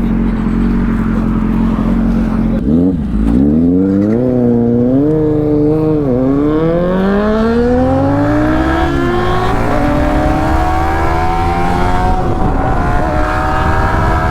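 Motorcycle engine revved up and down a few times, then accelerating hard with a long rising pitch, a gear change about nine seconds in, and rising again.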